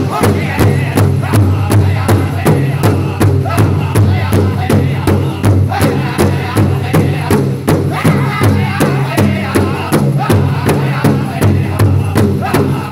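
A powwow drum group singing an intertribal song in unison over one large shared hide drum that several singers strike together with beaters, in a steady, even beat of roughly two strokes a second.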